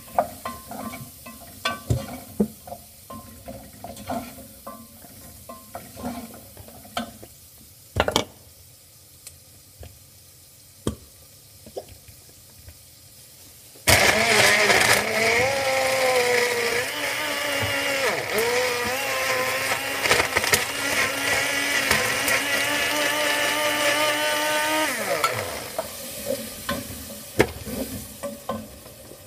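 Single-serve personal blender blending ice cream for a milkshake: the motor starts suddenly about halfway through, runs for about eleven seconds with its pitch dipping and wavering under the load, then winds down with a falling pitch. Before and after it, scattered clicks and knocks of containers and the blender cup being handled on the counter.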